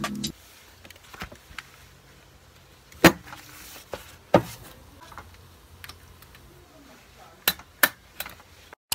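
Kangaro desktop stapler being pressed down through a stack of paper: four sharp clacks, the loudest about three seconds in and two close together near the end, with softer taps between them.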